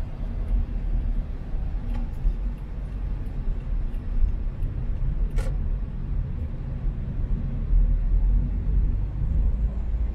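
A car driving, with a steady low rumble of engine and road noise. A single sharp click sounds about five seconds in.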